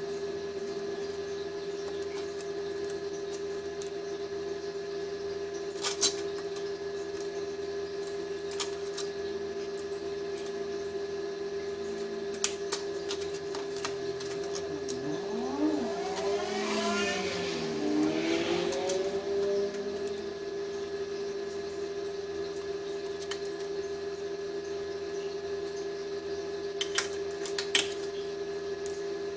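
A steady machine hum at one pitch, with a few sharp metal clinks as steel pieces are handled on a workbench. About halfway through comes a scraping sound that wavers up and down in pitch.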